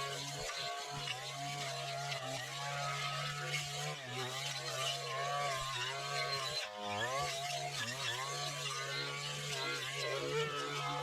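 Weedwacker with a metal brush-cutting blade running steadily, its engine note dipping briefly about half a second in and again past the middle as it cuts through weeds.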